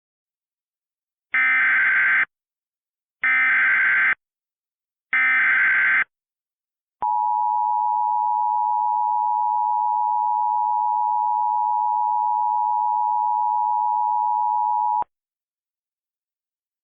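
Emergency Alert System SAME header: three bursts of digital data tones, each about a second long with a second's gap between them. They are followed by the EAS attention signal, a steady two-tone sound held for about eight seconds that cuts off abruptly. Together they mark the start of an emergency alert broadcast.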